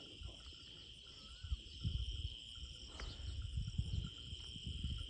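Crickets chirring in a steady, high-pitched evening chorus, with a low uneven rumble underneath.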